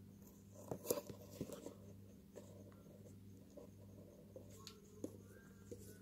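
Faint scratching and clicking inside a budgerigar nest box, sharpest in a short cluster about a second in and then as scattered light ticks, over a steady low hum.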